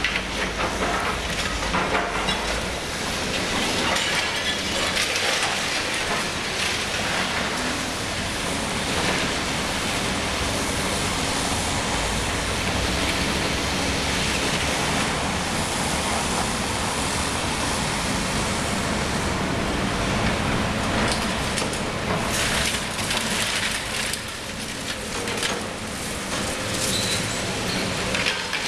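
Liebherr 954 long-front demolition excavator at work: its diesel engine runs steadily under a continuous noise of concrete and rubble crunching and clattering, with irregular knocks and crackles throughout.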